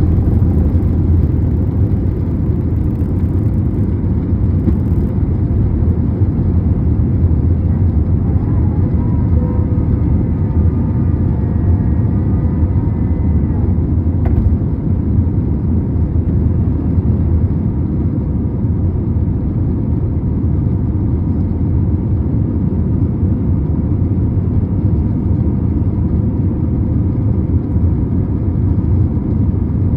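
Airbus A321 jet engines and airflow heard from inside the cabin through takeoff and initial climb: a loud, steady low rumble. Faint whining tones come in about a third of the way through, and there is a single knock about halfway.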